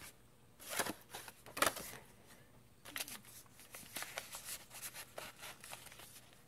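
Paper cards and pages rustling and crinkling as they are handled, with two louder rustles near the first two seconds and softer scattered crackles after.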